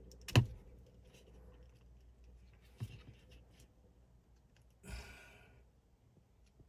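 Small sharp clicks from handling a plastic wiring connector behind a car's dashboard: a loud click about half a second in and a smaller one near three seconds. A brief breathy hiss comes around five seconds.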